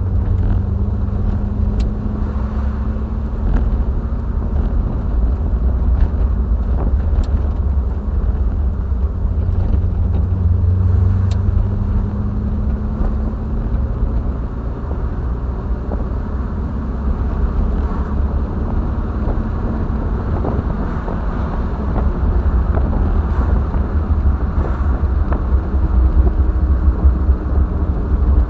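Triumph TR7's 4.6-litre V8 engine and road noise while driving: a steady low rumble with the engine note slowly rising and falling.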